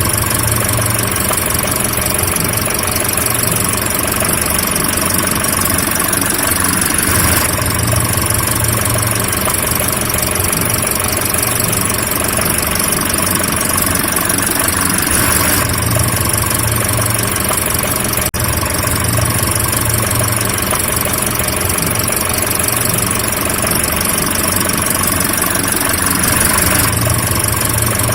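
Car engine running steadily, a continuous drone that swells slightly every several seconds, with one very brief cut about two-thirds of the way through.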